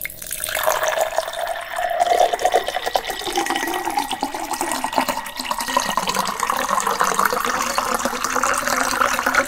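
Liquid pouring steadily into a container. It starts abruptly, and its pitch rises slowly as the container fills.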